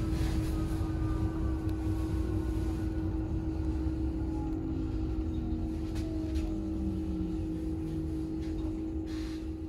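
Cabin sound of a Heuliez GX337 Linium electric bus in motion: steady low road rumble and a constant hum, with the electric drive's whine gliding slowly down in pitch. A short hiss near the end.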